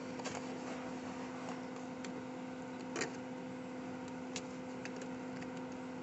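A few light clicks and taps as a screwdriver packs steel wool into the gap around a pipe in a concrete slab, the loudest about three seconds in. A steady low hum runs underneath.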